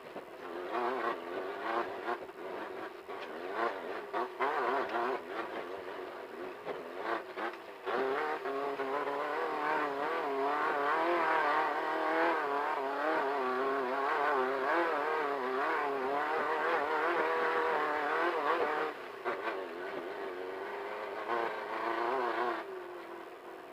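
Off-road desert race car's engine running under load, its pitch rising and falling constantly as the throttle goes on and off. It is louder for about ten seconds in the middle and eases off near the end.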